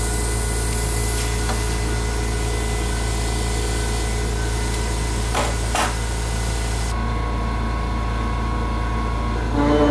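Steady hum and whine of the Pocket NC v2-50 desktop CNC mill, with two light clicks a little past halfway. A high hiss cuts off suddenly about seven seconds in, and new steady tones come in just before the end.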